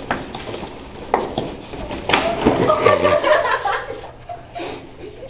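A scuffle on a tiled hallway floor as a girl is pushed down: a few sharp knocks, the loudest about two seconds in, then about a second of giggling.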